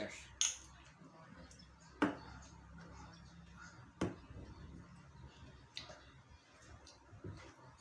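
Two enamel metal mugs clinking together, a short ringing clink, followed by single sharp knocks about two and four seconds in as mugs are set down on a table, with faint clatter between.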